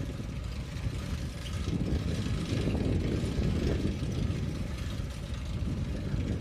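Steady low rumble of a bicycle rolling on a road, with wind buffeting the camera's microphone, recorded from a camera mounted on the moving bicycle.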